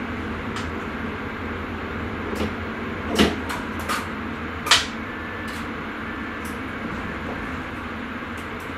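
Steady running rumble of a Sprinter electric train, heard from inside the driver's cab. Several sharp clicks and knocks cut through it, the two loudest about three and four and a half seconds in.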